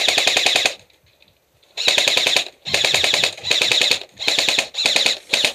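Airsoft rifle firing full-auto bursts of rapid clicking shots: one burst, a pause of about a second, then six short bursts in quick succession.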